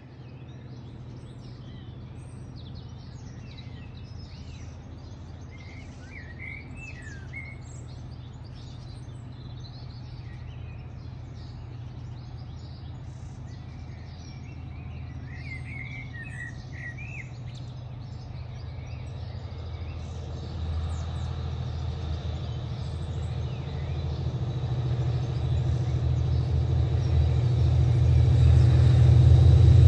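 Low steady drone of an approaching Class 57 diesel locomotive's EMD two-stroke V12 engine, growing steadily louder from about two-thirds of the way through. Small birds chirp over it, most clearly about six and sixteen seconds in.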